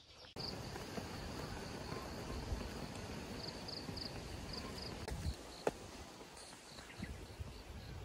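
Insects chirping in short high pulses, at first in scattered groups and then in a steady run of about three to four a second, over outdoor ambient noise. A single sharp click a little past the middle.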